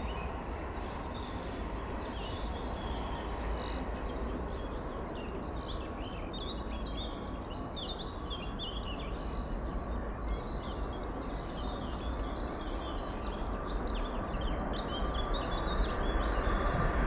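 Small birds chirping and twittering over a steady low rumble of background noise, the rumble growing louder over the last few seconds.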